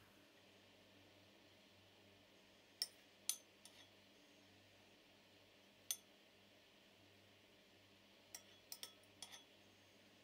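Metal spoon clinking against glassware while cherry syrup is spooned out of a glass bowl. Two sharp clinks come about three seconds in, followed by a couple of softer taps. A single clink comes near six seconds, and a quick run of four or five lighter clinks near the end.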